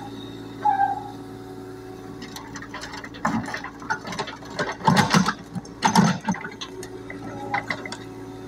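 Mini excavator running steadily while its bucket scrapes and knocks against soil and stones, with the heaviest knocks about five and six seconds in.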